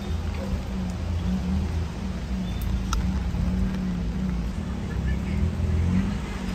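City street ambience: a steady low rumble of road traffic, with a few faint ticks over it.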